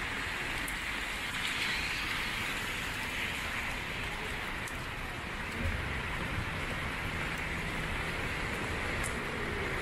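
Steady downpour falling on an umbrella overhead and on the wet pavement, an even hiss of rain.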